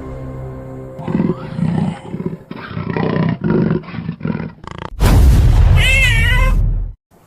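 Dramatic animal sound effects over a music score: a run of short growls, then a loud wavering roar that cuts off suddenly near the end.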